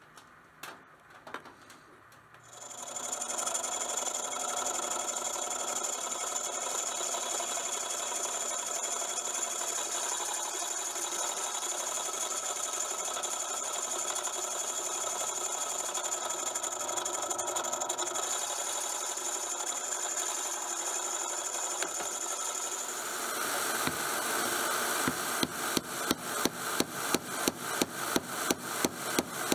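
Benchtop drill press running and drilling through leaf-spring steel, a steady machine sound with a high whine, starting a couple of seconds in and lasting about twenty seconds. Near the end it gives way to quick regular strokes, about three a second, as a piece of wood is worked on a steel block.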